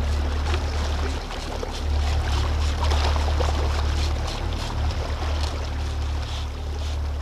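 Small trolling boat on open water: a steady low rumble with faint engine hum, wind buffeting the microphone and water noise around the hull.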